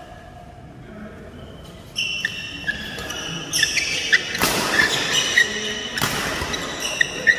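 Badminton rally: rackets striking the shuttlecock, with two sharp hits about four and a half and six seconds in, and shoes squeaking on the court floor from about two seconds in, echoing in a large hall.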